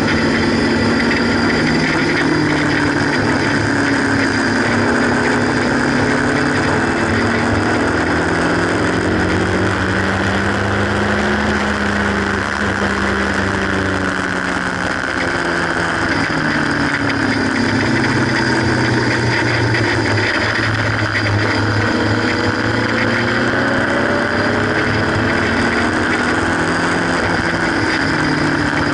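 Haynes Roadster kit car's 1.8-litre engine running hard on track, heard from the open cockpit: the revs climb and drop again and again as it accelerates and backs off, with a long slow rise and fall about ten seconds in. A steady rush of wind runs under the engine note.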